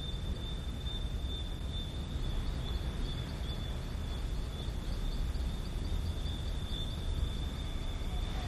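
A steady high-pitched tone over a low rumble and hiss, with faint, evenly repeating pulses just above the tone.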